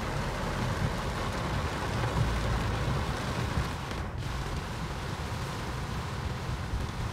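Heavy rain falling on a car's windshield and roof, heard from inside the moving car, over the low rumble of the car on the wet road.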